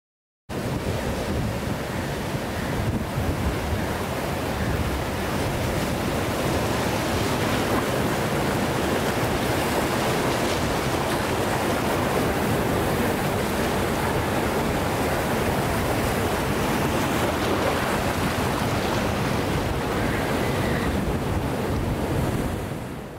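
Sea surf washing steadily onto a beach, with wind rumbling on the microphone. It cuts in abruptly and fades out at the very end.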